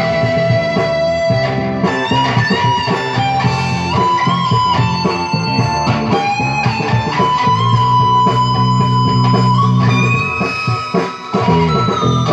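Electric guitar playing a lead line of long, sustained notes that bend and waver, over low held notes underneath, played live through an amplifier. The playing briefly drops away near the end before coming back in.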